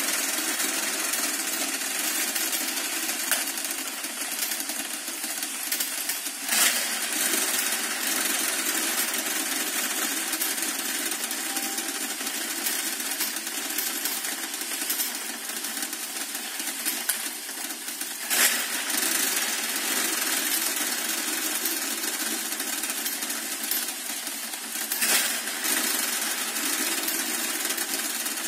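Motorized coin counting machine running, coins rattling steadily through it as it counts, with a few louder clattering bursts.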